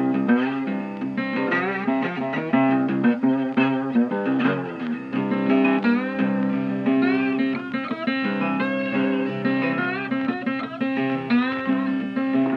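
Background music led by plucked guitar, playing a steady run of notes.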